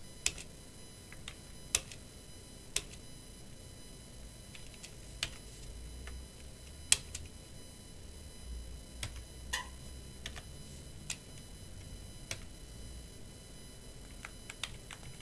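Computer keyboard keys pressed one at a time, about a dozen sharp clicks spaced a second or more apart: arrow keys and Enter tapped to move through a text boot menu.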